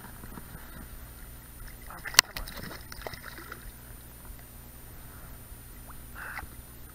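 Water sloshing and lapping as a hooked trout is played at the surface of a shallow stream. A single sharp click or knock comes about two seconds in.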